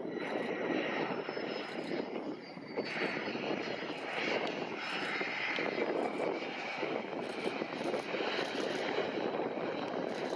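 Cessna 560XL Citation XLS's twin turbofan engines running as the jet rolls out along the runway after landing: a steady rush with a thin high whine that sinks slightly in pitch over the first few seconds.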